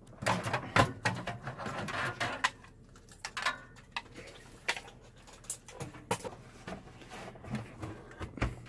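Screwdriver and hands working on a desktop computer's case and parts: a dense run of scrapes, clicks and rattles over the first couple of seconds, then scattered clicks and knocks.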